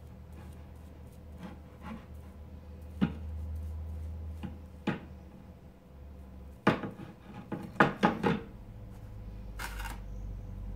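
Hands working a picture frame and foam brush on a wooden side table: scattered knocks and taps, several in quick succession past the middle, then a short scraping swish near the end as the brush goes into a bowl of Mod Podge.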